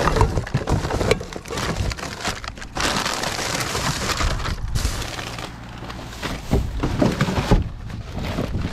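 Plastic bags, wrappers and packaging crinkling and rustling as gloved hands rummage through rubbish in a plastic wheelie bin, with occasional knocks from containers being shifted.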